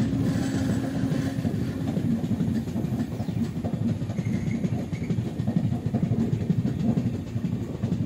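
Passenger train running at speed, heard from the open side of a coach: the steady low noise of wheels on the rails, with a hum that fades out about a second and a half in.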